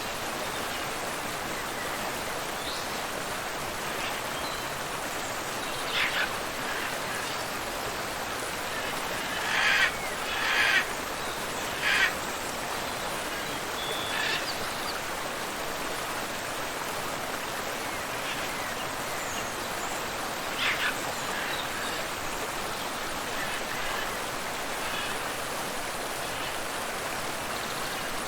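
Steady rushing of a tropical waterfall and river. A handful of short, sharp sounds rise over the flow, the loudest a cluster about ten to twelve seconds in.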